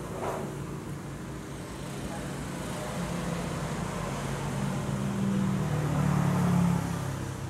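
A motor vehicle engine running, a steady low hum that grows louder from about three seconds in and eases off near the end, like a vehicle passing close by.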